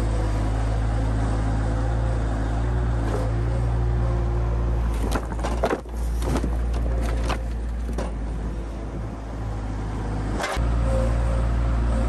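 Skid steer engine running steadily while its pallet forks pick up a log. Several loud knocks and clatters of wood against the steel forks come between about five and eight seconds in, with one more sharp knock at about ten and a half seconds.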